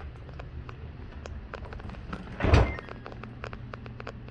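Samsung dishwasher drain pump running with a steady low hum, pumping water out through the air gap, with scattered light ticks. A brief loud rush of noise about two and a half seconds in.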